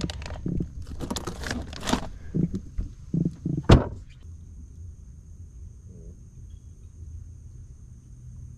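Knocks and clatter of gear being handled on a fishing boat, ending in one loud heavy thump a little under four seconds in. After that only a low steady hum and a faint high whine remain.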